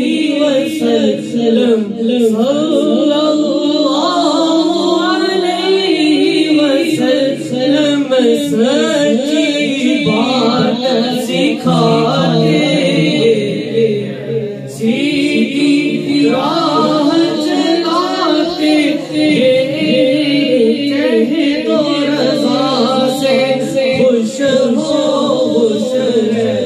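A man singing a devotional naat into a microphone, with no instruments, over a steady low drone of held voices.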